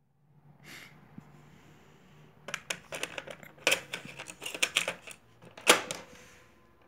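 Plastic clicks and clacks of a portable CD/cassette boombox being handled: a cassette going into the deck and its keys being pressed, a quick run of sharp clicks from about two and a half seconds in, the loudest near the end.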